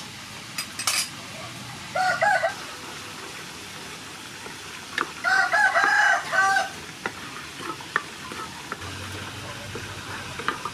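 Wooden spatula stirring and scraping a sauce in a frying pan, with a light sizzle and scattered clicks. A chicken calls twice: a short burst about two seconds in, and a run of about four notes near the middle, which is the loudest sound.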